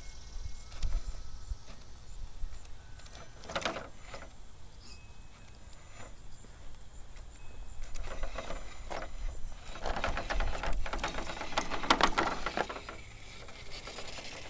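Axial SCX10.3 RC rock crawler with a brushed motor creeping over the course. There is a thin drivetrain whine, with scraping and knocking of its tires and chassis on the obstacle; the clatter is loudest about 8 to 12 seconds in.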